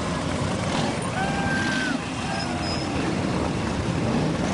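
Harley-Davidson V-twin motorcycle engines rumbling steadily at parade pace. Crowd voices call out over them, with a long rising-and-falling call about a second in.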